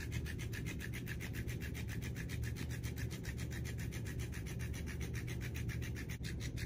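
Electronic flopping-fish cat toy running on carpet: its motor hums steadily while the body and tail flap, giving a fast, even rubbing rhythm of about ten strokes a second.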